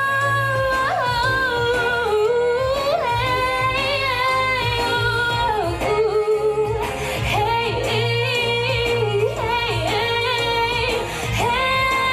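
A woman singing long, held notes with no clear words, her pitch wavering and sliding in ornate runs, with brief breaks for breath about six and eleven seconds in.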